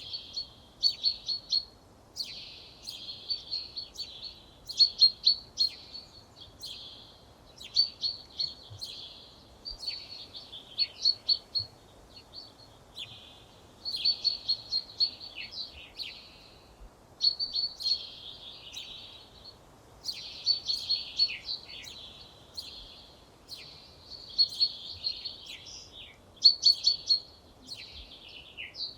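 A songbird singing short phrases of quick, high notes, one phrase every two seconds or so with brief pauses between.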